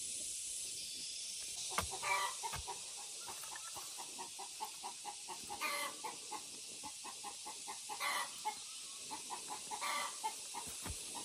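Chickens clucking, with short calls every couple of seconds and soft clucks between them, over a steady high hiss.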